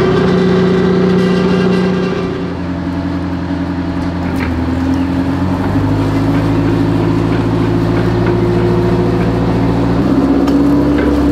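The Grant tank's Detroit Diesel 8V71T engine running during a load test. Its pitch drops about two seconds in and shifts again a couple of times, with a few faint clicks.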